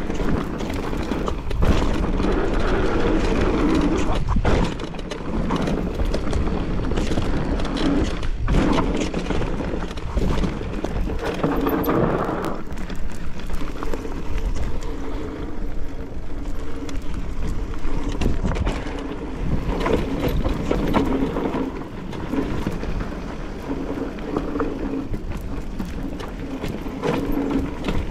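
Mountain bike ridden along a rough, stony trail: tyres crunching and rattling over rocks and gravel, with the bike clattering and wind rumbling on the microphone.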